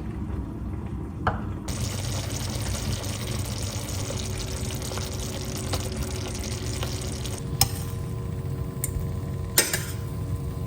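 Kitchen work: a steady rushing hiss starts about two seconds in and dies down about three-quarters of the way through, then a few sharp clinks of dishes or utensils.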